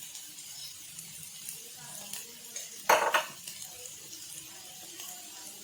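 A metal utensil clanks once against the pan about three seconds in, with a few lighter taps, over a faint steady sizzle of food frying.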